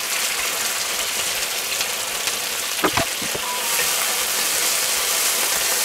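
Mushrooms and fillet medallions sizzling steadily in a frying pan, a wet frying hiss, with one metal clink of tongs against a steel bowl about three seconds in. The sizzle grows brighter a little later as the mushrooms are spread over the pan.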